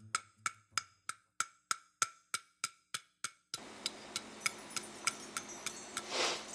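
Wood-block ticks at a steady beat, about three a second, like the tick-tock opening of a children's song. About halfway in, room noise comes in under the ticks, and a short hiss swells just before the end.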